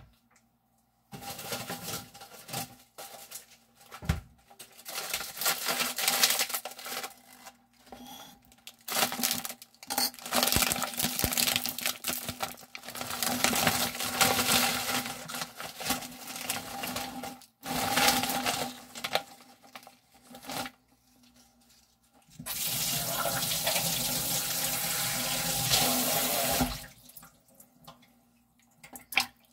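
Water running from a kitchen tap into a sink, starting and stopping in irregular spurts, then flowing steadily for about four seconds near the end.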